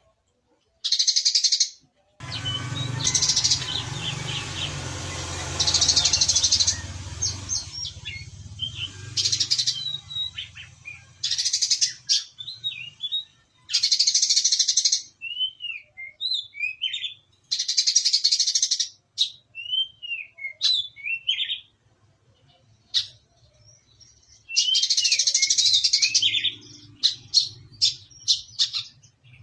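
Brown-throated sunbird singing: repeated bursts of very rapid, high trilled notes about a second long, with short sparrow-like chirps between them. A low rumble runs under the first few seconds.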